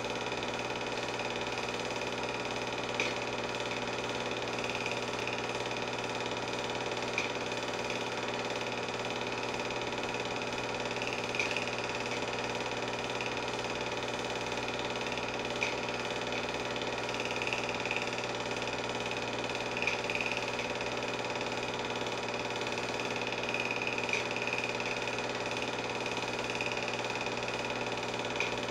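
Film projector running steadily: an even motor and film-transport whir with a high whine and a few faint clicks.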